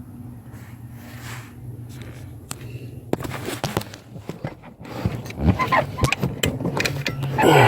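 Metal clicks, knocks and rattles of hand work on a car's pedal assembly under the dashboard, sparse at first and coming thick from about three seconds in, over a steady low hum. A brief louder falling sound comes near the end.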